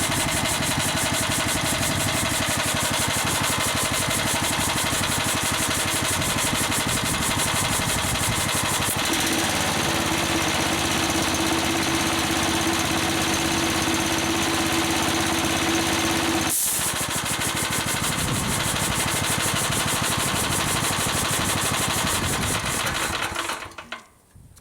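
Belt-driven air compressor running on a home-made aluminium V-groove pulley with one belt, its pump making a fast, even chatter. A steady hum joins about a third of the way in, and the compressor stops near the end.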